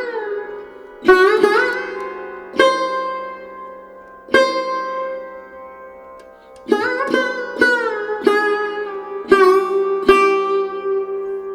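Sitar-like plucked string music: single notes and short phrases struck over a steady drone, each ringing out, several bending up in pitch.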